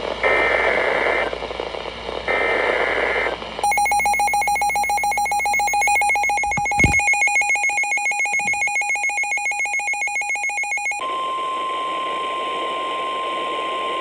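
Emergency Alert System tones: two one-second bursts of the warbling SAME data header, then the buzzy two-tone EAS attention signal for about seven seconds with a low thump partway through, then the steady single-pitch NOAA Weather Radio warning alarm tone for about three seconds.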